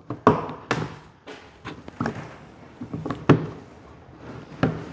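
Hard plastic clicks and knocks as a spray-drone tank's round fill lid and its red quick-fill pop-out cap are pressed and handled: about seven separate knocks, the loudest a little past three seconds in.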